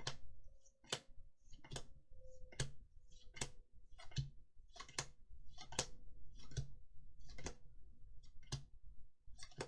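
Magic: The Gathering trading cards being flicked through one at a time, a crisp snap about every three-quarters of a second as each card is moved off the pile, over a faint steady hum.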